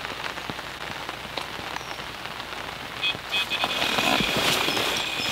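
Rain falling on a fishing shelter's fabric canopy. About three seconds in, an electronic bite alarm starts beeping in quick pulses and then sounds almost continuously: a tench has taken the bait and is running with the line.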